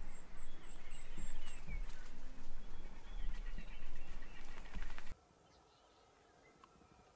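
Outdoor ambience of birds chirping, with a high trill in the first couple of seconds, over a low rumble. About five seconds in it cuts abruptly to a much quieter, faint background.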